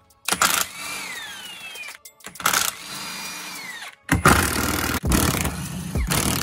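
Cordless impact wrench run in three bursts on differential bolts, its motor whine falling in pitch in the first two. The third burst, on the ring-gear bolts of the diff carrier, is louder and rattles as the impact mechanism hammers.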